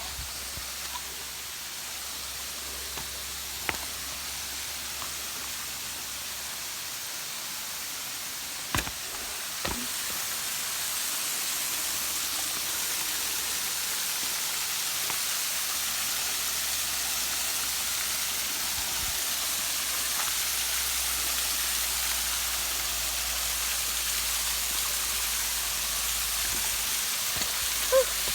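Steady rushing of water falling from a small waterfall running low after a dry spell, growing louder about ten seconds in and then holding steady. A few sharp clicks come in the first ten seconds.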